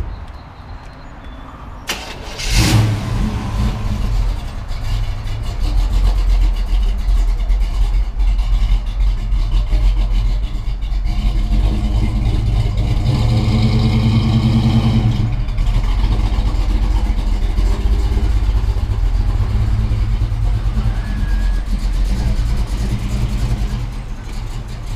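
Pontiac Firebird's engine starting about two seconds in and settling into a loud, steady idle, revved up briefly around the middle.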